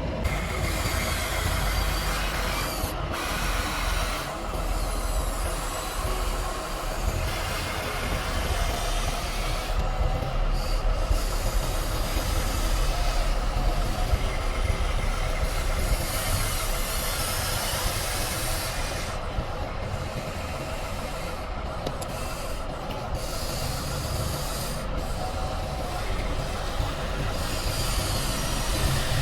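Radio-controlled construction models, a model excavator and dump truck, running: a steady motor and gear whir with a hiss, its pitch wavering as the machines work.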